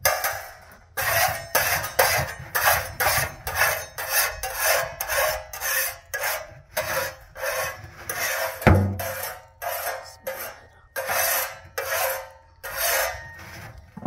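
Rhythmic back-and-forth rubbing strokes, about two a second, with one heavier knock near the middle.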